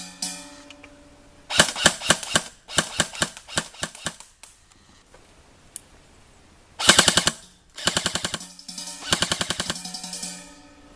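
A&K SR25 airsoft electric rifle firing full-auto, its gearbox cycling in rapid bursts of shots with short pauses between them.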